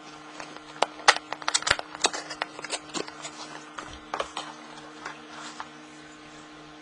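A reel's cardboard box being opened and its packaging handled: a quick run of sharp clicks and crackles, busiest between one and three seconds in, then thinning out.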